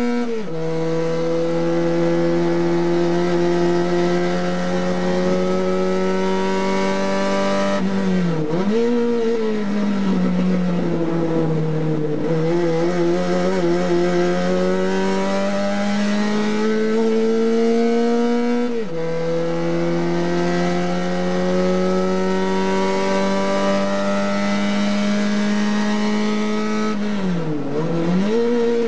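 A TC 850 race car's engine heard from inside the cockpit, running hard with its pitch climbing slowly through long stretches. The pitch falls suddenly on an upshift just after the start and again about two-thirds through, and twice (about eight seconds in and near the end) the engine drops away and picks up again as the car slows for a corner.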